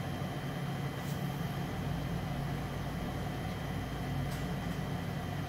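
Steady low hum and hiss from running room equipment, which is normally switched off for recording.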